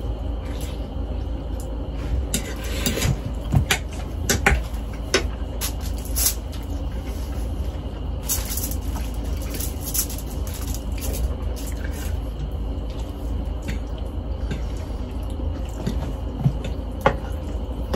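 A man eating spaghetti: slurping noodles and chewing with wet mouth sounds and scattered short smacks, over a steady low hum.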